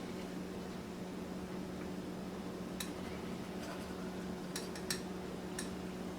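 Five or so light clicks and clinks of kitchen utensils and dishes, spaced irregularly through the second half, over a steady low electrical hum.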